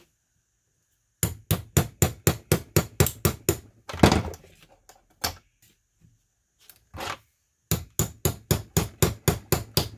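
A small hammer taps quickly on the handle of a flat screwdriver, about four light blows a second, in two runs with one harder blow between them. The blows drive the blade into the glued seam to split two plastic halves apart.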